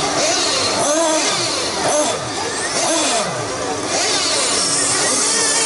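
Radio-controlled racing trucks running on a dirt track, their small motors revving up and down in many overlapping rising and falling pitches as they accelerate and slow through the corners.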